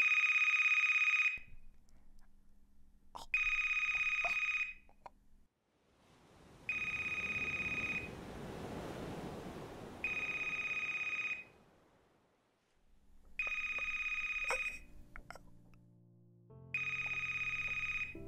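Telephone ringing unanswered: six rings, each about a second and a half long, about three and a half seconds apart, before the call goes to voicemail.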